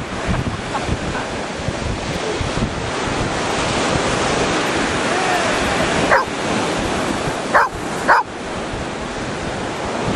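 A dog barking three times: one short bark about six seconds in, then two more close together about a second and a half later, over steady surf and wind buffeting the microphone.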